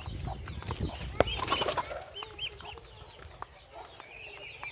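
Chickens clucking with short, high chirps and peeps, over a low rumble in the first two seconds and a single sharp click a little over a second in.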